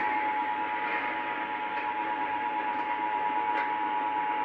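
Emergency Alert System attention signal: the standard steady two-tone alarm, held without a break over a background hiss. It marks the start of an emergency alert, here a tornado warning.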